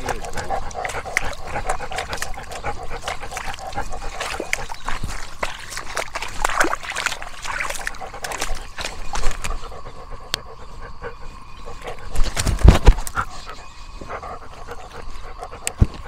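A dog moving about at close range, making scattered clicks and scuffles, with a louder bump about twelve and a half seconds in.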